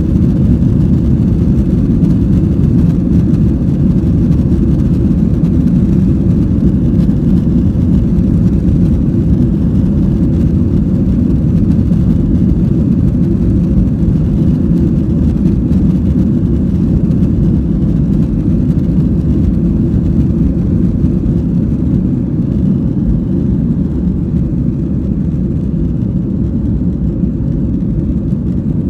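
Cabin noise inside a Boeing 737-800: a loud, steady low rumble from its CFM56-7B jet engines and rushing air. It eases slightly near the end.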